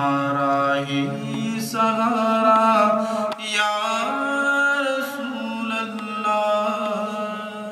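Devotional naat music with long, held, chant-like notes that shift in pitch every few seconds. It starts to fade out near the end.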